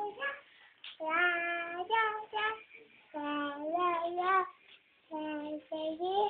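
A young child singing unaccompanied: short phrases of held, slightly wavering notes with brief pauses between them.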